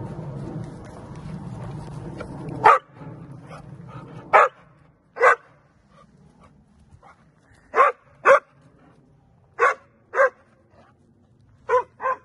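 Chocolate Labrador barking: nine short, sharp barks spread over about nine seconds, several in quick pairs, starting a little over two seconds in after a low rumble.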